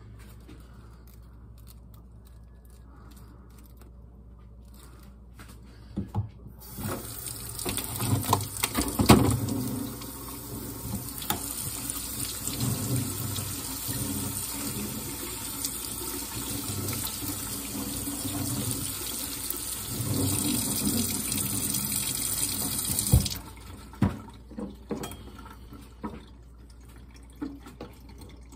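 Kitchen tap running over a cabbage wedge that is being rinsed by hand, the water splashing off the leaves. The water comes on about a quarter of the way in and cuts off suddenly about four-fifths in, with a few knocks from handling the cabbage early in the rinse and faint handling clicks before and after.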